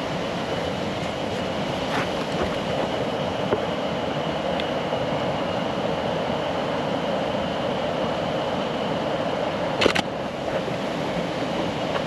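Steady rush of a waterfall, a continuous wash of falling water, with one sharp click about ten seconds in.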